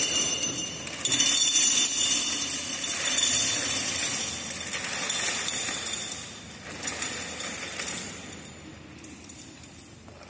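Small hard pieces poured from a metal vessel into a glass vase, rattling and clinking against the glass, heard close up on a microphone. The pouring is steady for about six seconds, then thins out and dies away.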